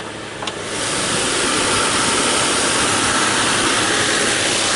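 Nissan Xterra's 4.0-litre V6 idling steadily, growing louder and clearer about a second in as the hood comes open over it. This engine noise is described as very common in the Xterra and in the Nissan Frontier, which shares the engine.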